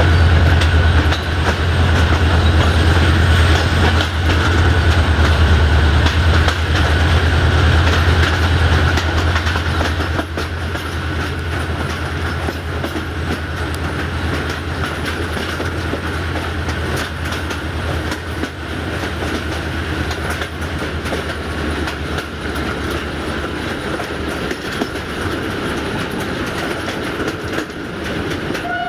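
Duewag VT628 diesel multiple unit pulling away, its diesel engine giving a low drone that eases off about ten seconds in, with wheels clicking over rail joints.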